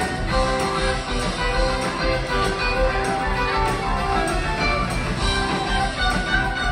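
Live rock band playing an instrumental passage: electric guitars over drums and bass, with a steady beat.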